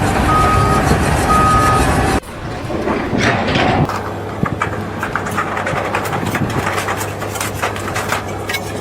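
Heavy machinery running loudly while a reversing alarm beeps twice, about a second apart. Then a sudden cut to a steady low hum with scattered clicks and knocks.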